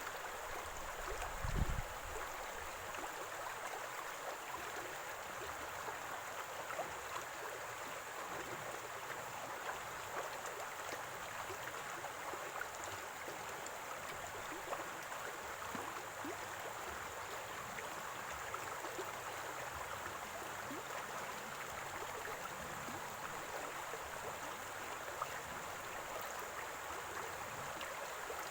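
Small stream of running water gurgling and trickling steadily. A brief low thump comes about one and a half seconds in.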